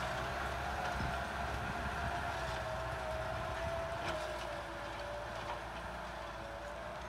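Kubota M6040SU tractor's diesel engine running steadily under load while ploughing, with a whine that wavers slightly in pitch over the engine note.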